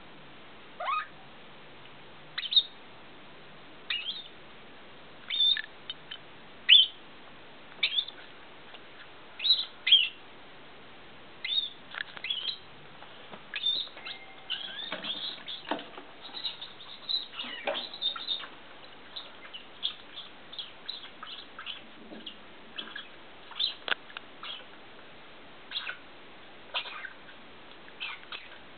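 A squirrel squeaking in short, high chirps, each a quick falling note. They come at an even pace of about one every second and a half at first, then turn more frequent and clustered about halfway through.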